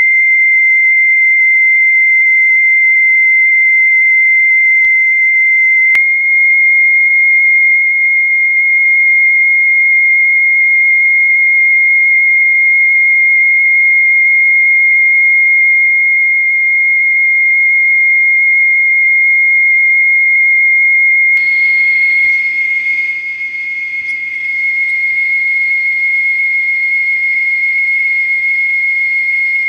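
A steady, high-pitched test tone from a cassette tone test tape played through boombox speakers. It switches abruptly to the next boombox about 6 seconds in and again about 21 seconds in. The last machine adds more hiss and briefly drops in level.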